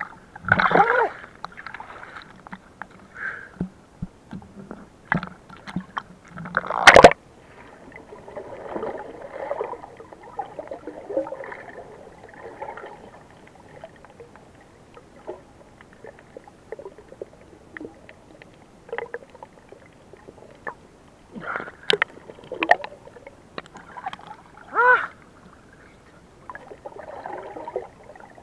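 Muffled underwater gurgling and sloshing heard through a submerged camera, with scattered clicks and knocks. The loudest is a sharp knock about seven seconds in, and there are bubbly bursts near the start and again near the end.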